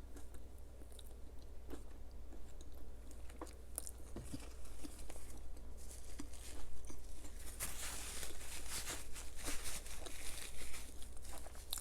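Close-up eating sounds: crisp food being bitten and chewed with crunching and crackling, getting busier and louder in the second half.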